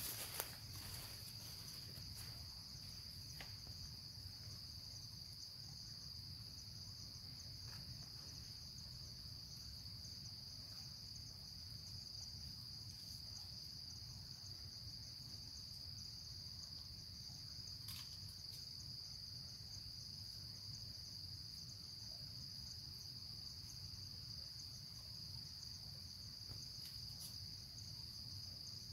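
Insects calling in a steady, unbroken high-pitched drone, with a few faint clicks now and then.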